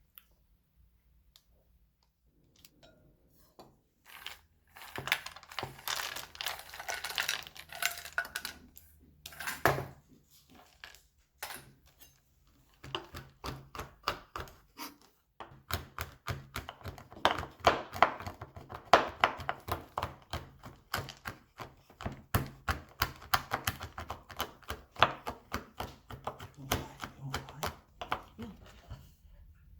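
A knife chopping rapidly on a cutting board, in quick runs of sharp taps with a pause about ten seconds in.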